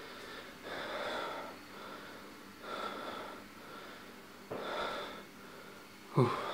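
A person breathing heavily and audibly close to the microphone, one breath about every two seconds. A short voiced gasp, falling in pitch, comes near the end.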